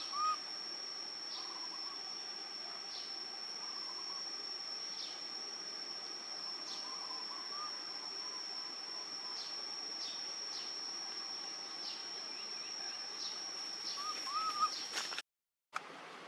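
Outdoor ambience: a steady high-pitched insect drone, with short falling chirps every second or so. A run of arched whistled bird notes comes at the very start and again a little before the end, and the sound cuts off about a second before the end.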